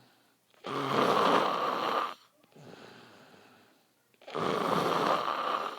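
A drunk man's loud snoring: two long, rasping snores about three and a half seconds apart, with quieter breathing between them.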